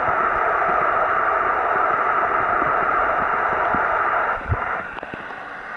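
Steady rushing water noise picked up by a submerged camera. It drops in level a little past four seconds in, with a single low knock.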